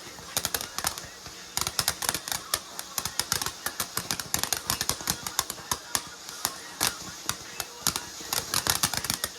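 A string of firecrackers going off: rapid, irregular sharp cracks, several a second, with a short lull about a second in.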